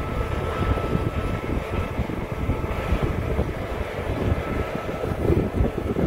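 New Holland combine harvester running steadily as it picks up and threshes canola swaths: a dense low rumble from the engine and threshing machinery, with a faint steady high whine over it.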